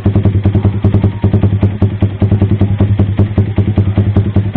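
Yamaha R15 V3's 155 cc single-cylinder engine idling steadily through an aftermarket AR Austin exhaust, with an even, regular exhaust pulse.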